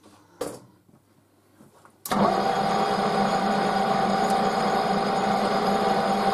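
A single clunk, then about two seconds in a metal lathe is switched on and runs steadily, its motor and gearing giving a constant hum and whine with the chuck spinning and no cutting.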